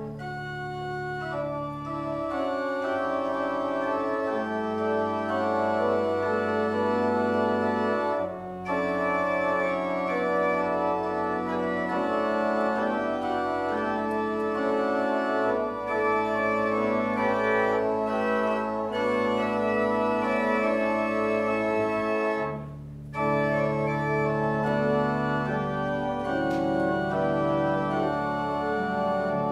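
Church pipe organ playing slow sustained chords over a changing pedal bass line. The music pauses briefly between phrases, about eight seconds in and again about twenty-three seconds in.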